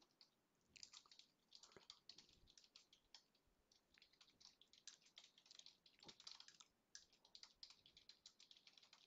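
Faint typing on a computer keyboard: quick, irregular key clicks, with a short pause a little over three seconds in.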